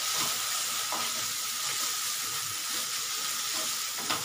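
Chopped onions and ginger-garlic paste sizzling steadily in hot oil in a kadhai while a wooden spatula stirs them, scraping and tapping against the pan about once a second, with a sharper knock near the end.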